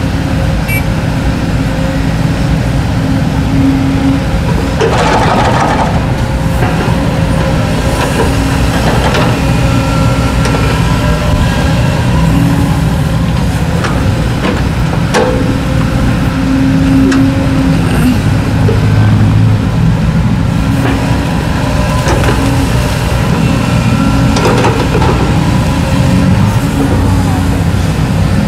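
Kobelco hydraulic crawler excavator's diesel engine running steadily as it digs, its note shifting with the load, with a few scattered clunks and scrapes of the bucket in rocky earth.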